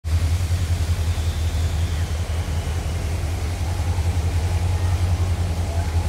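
Wind buffeting the phone's microphone: a steady low rumble with a quickly fluttering loudness.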